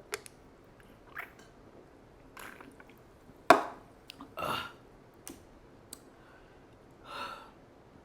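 Close-miked mouth sounds from a person: scattered lip smacks and clicks, one sudden louder mouth noise about three and a half seconds in, and two breathy exhales.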